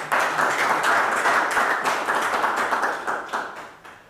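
Audience applauding, thinning to a few separate claps and dying away near the end.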